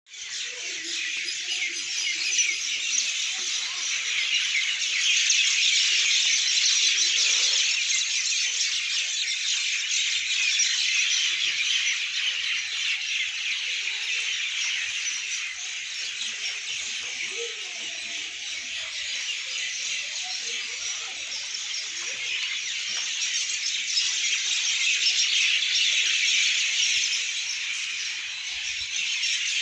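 Steady high-pitched hiss of wet snow falling, swelling a little twice along the way.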